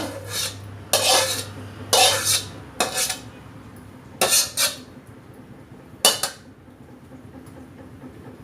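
Metal kitchen utensil scraping and clattering against a cooking pan, about five short scrapes roughly a second apart, then quieter.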